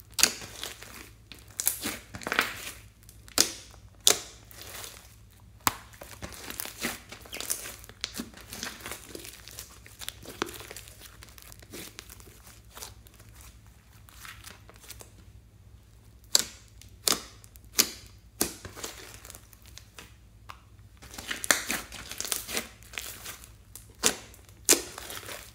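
Hands squeezing, folding and pressing a thick batch of slime with small beads mixed in. The slime makes irregular bunches of sharp wet pops and crackles. They go quieter for a few seconds past the middle and pick up again.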